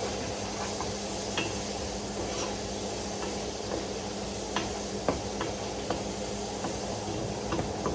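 Food sizzling in a frying pan on the stove, with a utensil stirring and clicking against the pan at irregular moments.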